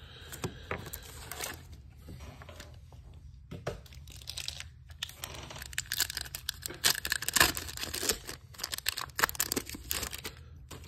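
A MetaZoo Wilderness booster pack wrapper being torn open by hand and crinkled as the cards are pulled out. The crackling rustle is loudest just past the middle.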